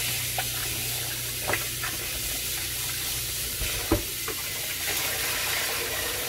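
Kitchen faucet running into a plastic bowl of water in a stainless steel sink while hands rub and splash raw chicken pieces. A few short sharp sounds stand out from the steady running water, the loudest about four seconds in.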